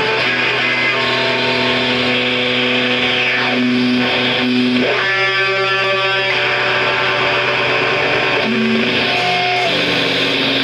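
Live band music: electric guitar through effects and distortion, playing long held notes that change every second or two over a steady low drone.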